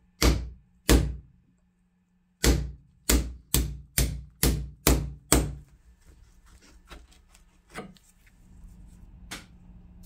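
Hammer blows on the grinder's wooden handle clamped in a bench vise: two hard strikes, a short pause, then seven quick strikes at about two a second, each ringing briefly. After these come a few faint taps and handling clicks.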